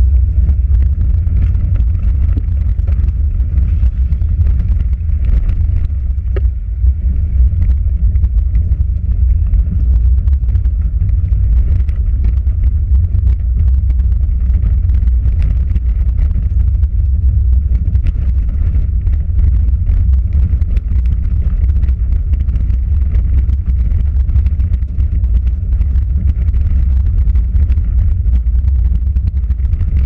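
Suzuki Jimny driving over rough ground, heard from inside the cabin: a constant loud low rumble with a steady patter of small ticks and rattles.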